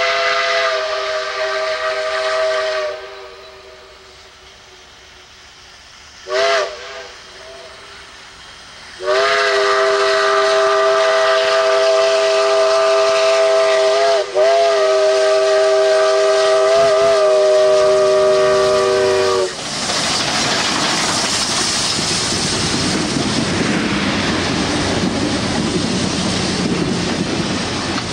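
Southern 2-8-2 No. 4501's steam whistle sounding several notes together: a blast that ends about three seconds in, a short toot, then a long blast of about ten seconds. The whistle cuts off and the locomotive and train pass close by with a loud steady rush of noise.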